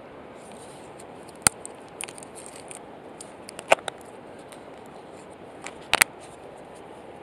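Sharp plastic clicks and taps of a small bait container and fingers handling egg baits, a handful of them, the loudest about a second and a half, nearly four and six seconds in, over a steady background hiss.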